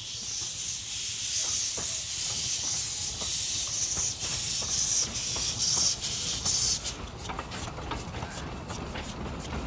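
Steam hissing from a narrow-gauge steam locomotive, cutting off suddenly about seven seconds in and leaving a low rumble with faint clicks.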